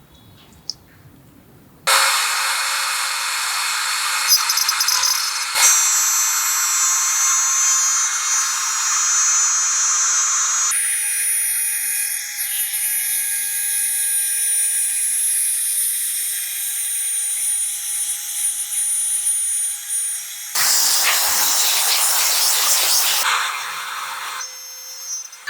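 A high-speed power tool starts suddenly about two seconds in and runs with a high-pitched whine. Its sound shifts a couple of times, turns louder and harsher for a few seconds near the end, then eases off.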